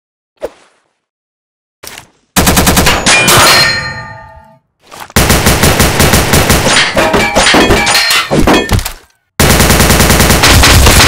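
Automatic gunfire sound effects: a single click about half a second in, then three long bursts of rapid fire separated by short silences, the first tailing off with a metallic ringing.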